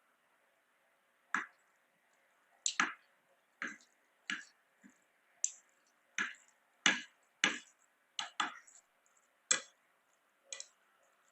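Close-miked eating and food-handling sounds: about a dozen short, sharp clicks and taps at irregular intervals, with silence between them.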